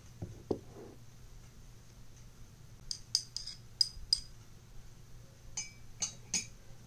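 A metal spoon clinking against a small coffee cup: a couple of soft knocks at the start, then a quick run of about six sharp, ringing clinks, and three more near the end.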